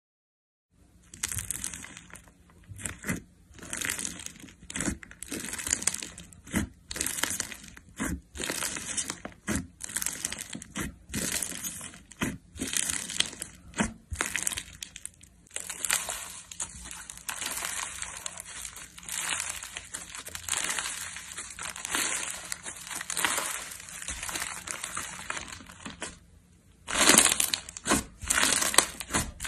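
Slime being mixed with powder paint, sequins and glitter, squished and pressed over and over in irregular crackly squelches. It starts about a second in, pauses briefly near the end, then comes back louder.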